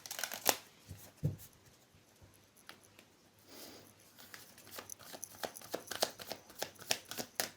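Tarot cards being handled and laid out on a table: a scatter of light card clicks and taps with a brief soft rustle midway, the clicks coming thicker in the second half.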